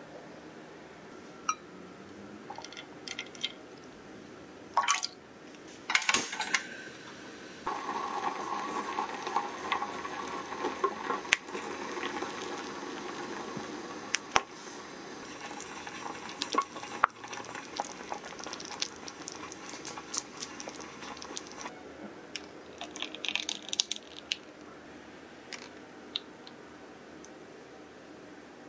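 Close-up kitchen sounds of making a chocolate dessert: a spatula clinking and scraping in a glass bowl of melted chocolate, then liquid poured and stirred in a pan. Scattered clicks come first, a steady pouring-and-stirring noise fills the middle stretch, and it grows quieter near the end.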